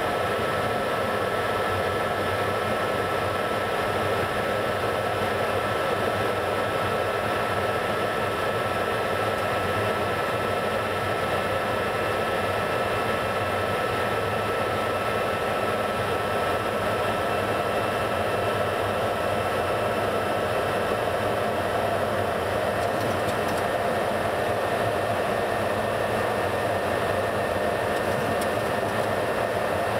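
Steady in-flight rush of a Boeing 707's Pratt & Whitney JT3D turbofan engines and airflow, heard from inside the aircraft. A thin steady whistle rides on top of it and fades out about two-thirds of the way through.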